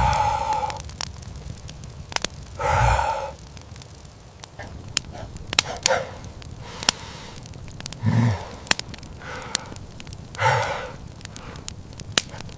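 Breathy vocal sounds, like heavy sighs, four of them a few seconds apart, over scattered sharp clicks.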